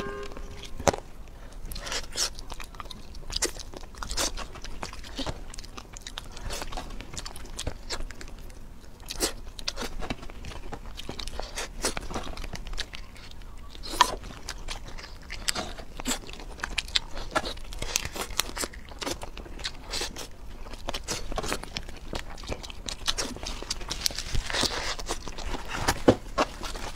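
Close-miked eating of cooked shrimp: crunchy bites and chewing, with many short, sharp clicks, more of them near the end.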